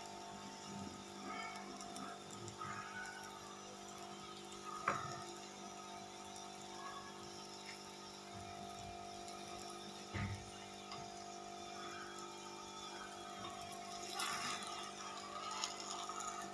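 Stuffed paratha frying in oil on an iron tawa over low heat: a faint steady sizzle under a constant hum, with two light knocks about five and ten seconds in. Near the end a flat metal spatula scrapes under the paratha to lift it for turning.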